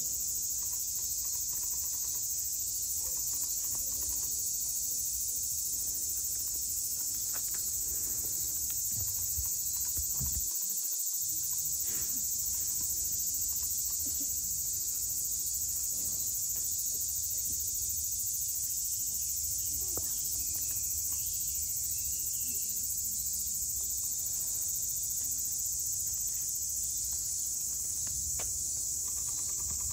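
Steady, high-pitched chorus of summer insects droning without a break.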